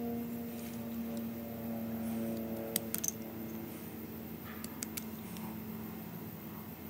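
A knife splitting and shaving thin strips from a wooden paint stir stick, with a few sharp clicks and snaps of the wood about three seconds in and again about five seconds in. A steady low hum runs underneath and fades slowly.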